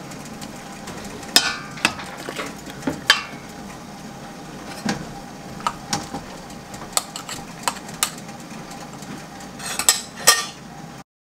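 Metal ladle and spoon clinking and scraping against a metal canning funnel, glass jar and enamel pot while ladling pickles and brine, about a dozen scattered sharp clinks.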